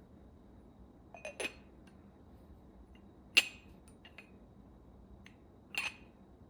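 Dishes clinking as they are handled and set down: a couple of light knocks, one sharp ringing clink in the middle and another near the end.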